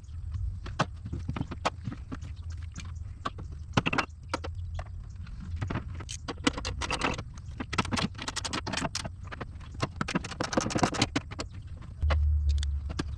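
Irregular clicking and knocking of tools and metal parts being handled in a car's engine bay, coming in quick clusters, over a steady low hum that grows louder near the end.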